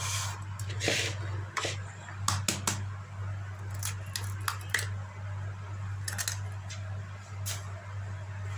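An egg being picked up and cracked on the rim of a plastic mixing bowl: a scattering of short shell taps and clicks, then the egg dropping into the empty bowl. A steady low hum sits underneath.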